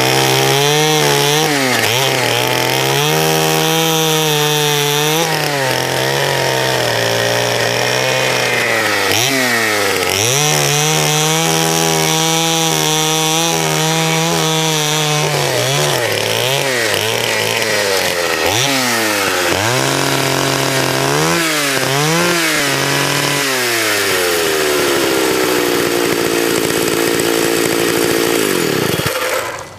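Vintage Partner S55 55cc two-stroke chainsaw cutting small logs into firewood slices, the engine speed dipping under load and picking up again with each cut. Near the end the engine winds down and stops.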